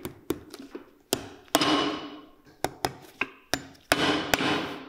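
About ten sharp metal strikes driving nails into a stacked leather heel, irregularly spaced, three of them ringing on for about half a second.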